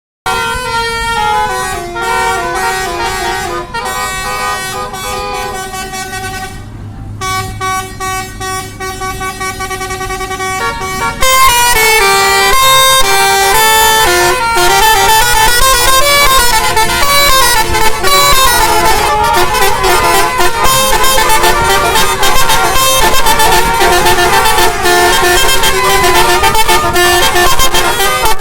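Basuri telolet multi-tone car horns playing stepped, tune-like horn melodies. About eleven seconds in it gets much louder as several horns sound at once and overlap in a continuous jumble of tunes.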